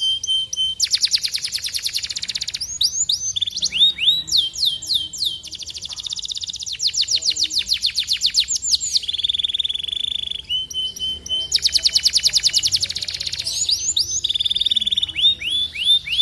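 Domestic canary singing a long, varied song: fast trills of repeated down-slurred notes alternating with steady whistled tones and rapid buzzing rolls, with no break.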